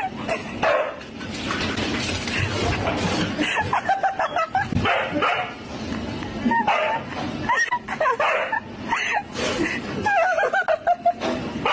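A dog making a run of short barks and yips, with bending, whining pitch.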